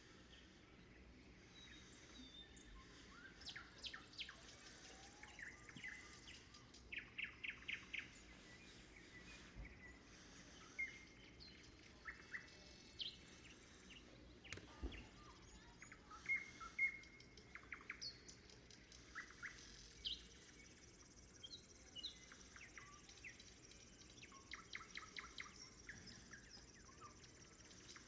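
Faint nightingale song: phrases of rapid repeated notes and short whistles, with pauses between them.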